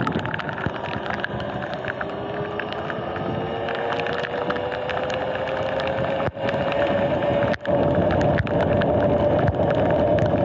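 Electric dirt bike riding on a wet street: wind rushing over the microphone, with the motor's whine rising steadily in pitch as the bike picks up speed.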